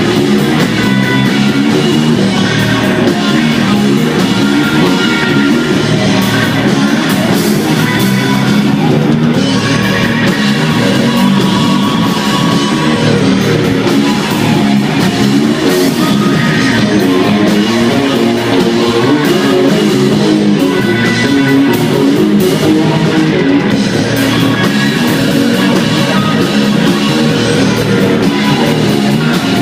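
Rock band playing live, loud and steady, with guitars and drum kit.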